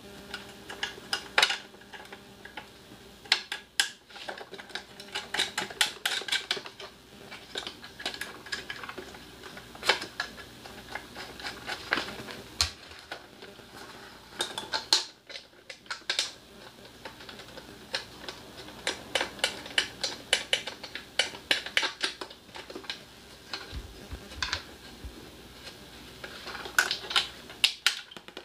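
Irregular metallic clicks and taps, in clusters, from hands and tools working on the metal parts of a small portable generator engine being reassembled.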